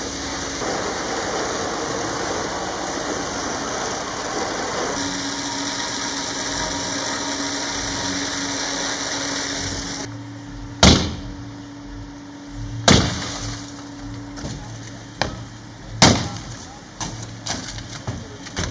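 A fire hose spraying water onto a burning car gives a steady loud hiss over a low hum for about the first ten seconds. Then come sharp cracks and bangs: three loud ones about two to three seconds apart, and several smaller clicks.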